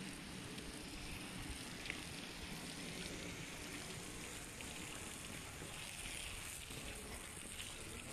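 Steady outdoor background noise, an even hiss and low rumble, with a faint click or two.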